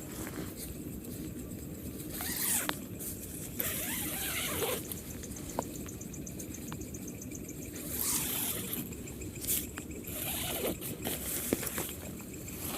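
Steady rain noise with intermittent rustling, swishing and scraping of camping gear being handled, with a few sharp clicks.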